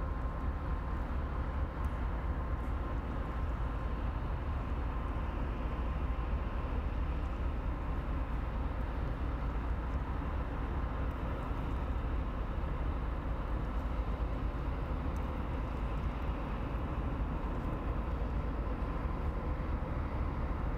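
Inland motor tanker's diesel engine droning steadily as the vessel passes: a low rumble with a faint steady hum on top.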